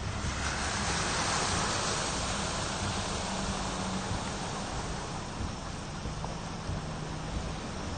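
Steady rushing noise of a rainstorm and running floodwater, swelling for a couple of seconds soon after the start.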